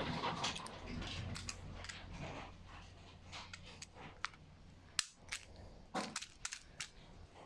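Wood fire crackling: irregular sharp pops and snaps, the loudest about five and six seconds in, over a soft hiss that fades in the first few seconds.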